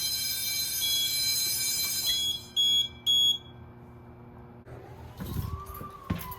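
Fire alarm sounding a steady electronic tone, which stops about two seconds in, then two short, loud beeps. A few seconds later an emergency vehicle's siren rises and then slowly falls as it passes.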